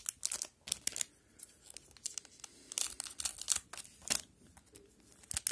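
Foil wrapper of a hockey card pack crinkling and tearing as it is handled and opened, in several short bursts of crackling with quiet gaps between.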